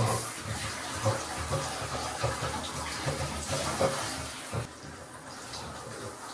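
Water running from a tap, a steady rush that gets a little quieter for the last couple of seconds.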